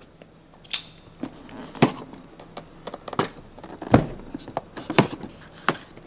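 Keyboard boxes being handled on a desk: a scattering of separate taps and knocks, about half a dozen.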